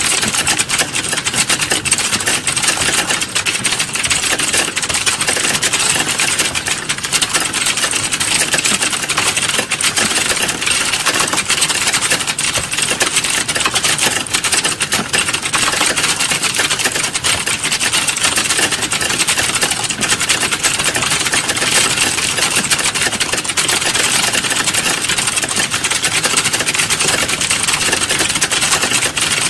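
Computer keyboard typing, a fast, unbroken stream of key clicks.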